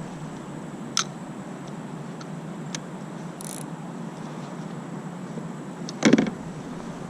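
Handling knocks in a plastic kayak: a sharp click about a second in and a heavier knock about six seconds in, over a steady low hiss.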